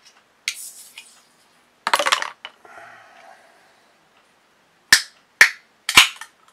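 Aluminium drink can of carbonated iced tea being opened by a stiff pull tab. A sharp crack with a short rush of noise comes about two seconds in, then a faint fizz. Three sharp clicks of the tab follow near the end: the tab sits tight against the lid and is hard to lift.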